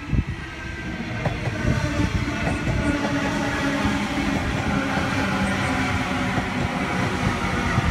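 Sydney Trains M set (Millennium) electric train rolling into the platform alongside: a rumble and clatter of wheels on rail under a steady electric motor whine that sinks slightly in pitch as it slows.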